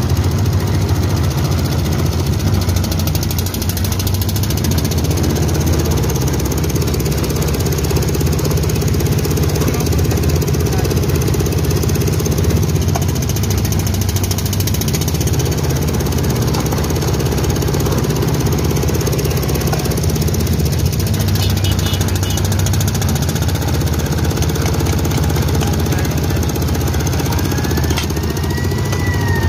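Engine-driven sugarcane juice crusher running steadily with a low, even rumble as cane stalks are fed through its rollers. Near the end a siren rises and falls in the street.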